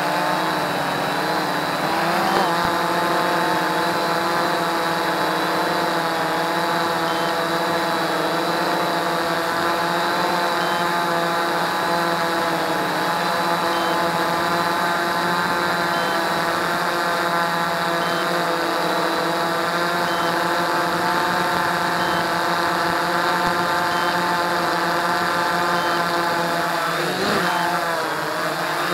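Quantum Nova quadcopter's brushless motors and propellers running with a steady whine as it descends to land under return-to-home mode. Near the end the pitch briefly dips and rises as it settles onto the grass.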